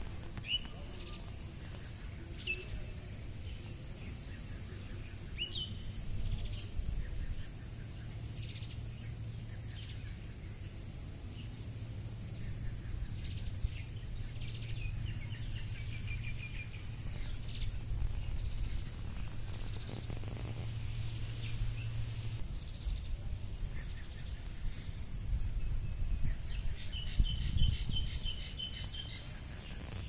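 Outdoor ambience of birds calling: short chirps and whistled notes scattered throughout, and a quick run of repeated notes near the end. A steady high-pitched insect drone and low rumble sit beneath them.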